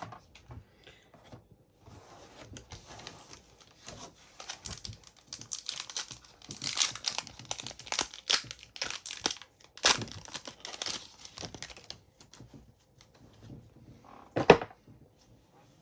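A foil wrapper on a pack of hockey trading cards being torn open and crinkled in the hands, in irregular crackles. A single sharp tap comes near the end.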